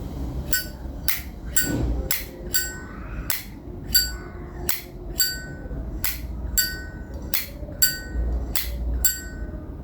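Vintage mid-1950s Zippo lighter's lid being flipped open and snapped shut over and over. It makes about fifteen crisp metallic clinks, a little under two a second, most with a short bright ring.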